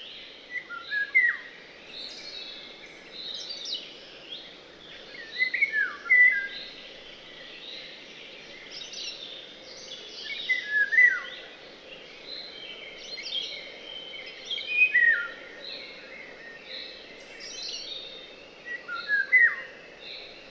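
Several songbirds singing, one repeating a short song phrase of sharp falling notes about every four to five seconds among quicker chirps from other birds, over a faint steady hiss.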